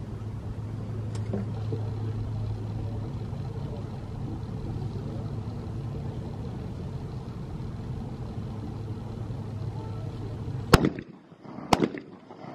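Two shotgun shots about a second apart, typical of a skeet double fired at a pair of clay targets. Before the shots there is a steady low hum, which drops away at the first shot.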